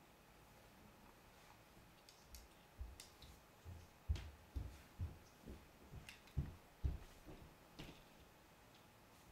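Lego pieces being handled and pressed together: a run of soft, irregular knocks and small plastic clicks, about two a second, starting a few seconds in and dying away near the end.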